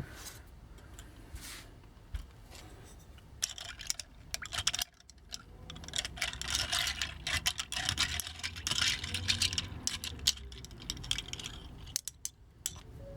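A whitening container being opened and small hard plastic toy parts handled inside it: irregular clicks and light rattling, with a denser stretch of rustling and clatter in the middle.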